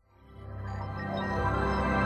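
Ambient electronic music fading in from silence, with sustained low drone tones swelling steadily.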